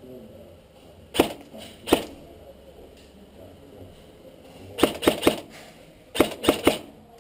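Airsoft guns firing sharp snapping shots: two single shots, then two quick bursts of about four shots each.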